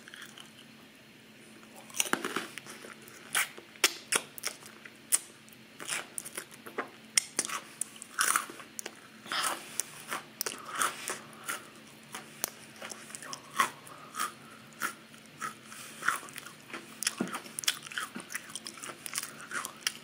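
Crackers spread with cream cheese being bitten and chewed: a run of sharp, irregular crunches that starts about two seconds in and keeps going.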